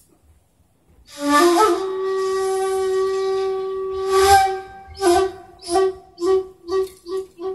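Shakuhachi coming in about a second in with a breathy note that scoops up into pitch and is held for over three seconds. The same note then repeats as short, breathy pulses, roughly two or three a second.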